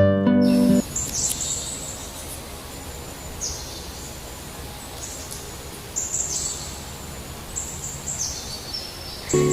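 Small birds chirping: short, very high calls repeated about seven times, some sliding down in pitch, over a steady outdoor background hiss.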